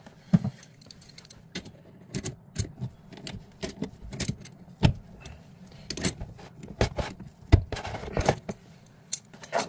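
Adjustable wrench working a chrome angle stop valve as it is tightened onto the supply pipe: irregular sharp metal clicks and clinks, about one or two a second, as the wrench is set on and turned again and again.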